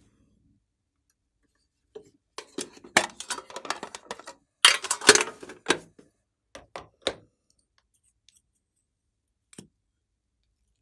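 Clicks and crackly rustling from a small plastic lip gloss tube being picked up and opened. They come in dense bursts from about two to seven seconds in, with one more click near the end.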